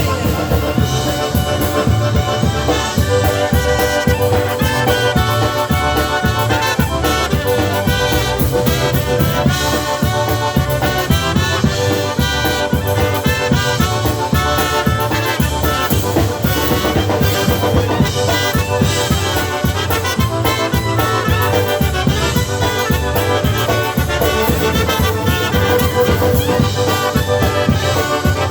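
Live polka band playing an instrumental stretch of a polka, with a steady beat in the bass throughout.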